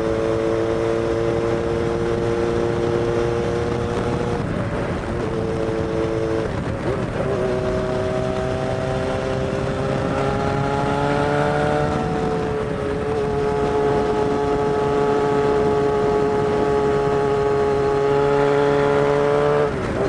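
Kawasaki Zephyr 750's air-cooled inline-four engine running steadily. The engine speed wavers about five to seven seconds in, then rises a little and holds.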